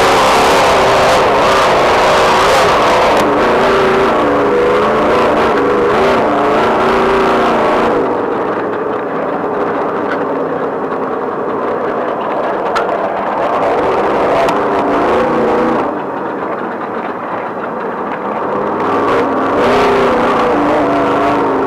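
Off-road race vehicle's engine revving and easing as it races over a rough dirt track, with road and wind noise, heard from the onboard camera. The engine pulls hard at first, eases off about a third of the way in and again near two-thirds, and picks up once more near the end.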